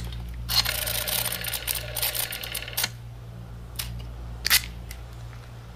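Small handheld metal gadget whirring with a rapid run of mechanical clicks for about two and a half seconds, followed by two separate sharp clicks.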